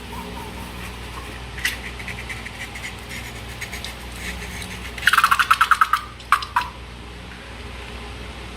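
Slime and balloon-making materials being handled: scattered small sticky clicks, then a rapid run of clicks about ten a second for a second or so past the middle, followed by two single clicks.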